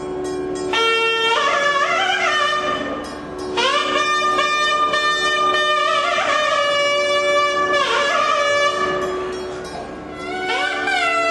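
Nadaswaram, the South Indian double-reed temple horn, playing a melody in long phrases with sliding pitch over a steady drone note. The melody drops away briefly twice.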